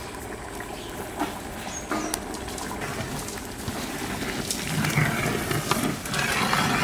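A long metal ladle stirring rice, lentils and water in a big aluminium cooking pot: sloshing, with a few knocks of the ladle against the pot, getting louder over the last couple of seconds.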